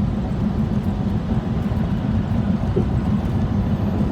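Steady low rumble of a vehicle on the move, engine and road noise.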